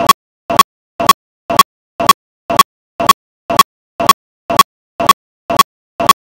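Percussive beat repeating steadily twice a second, each beat a quick double strike, softer then louder, with complete silence between beats.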